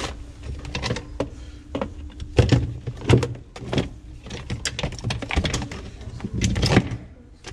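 A run of irregular clicks and knocks from things being handled, over a low steady hum.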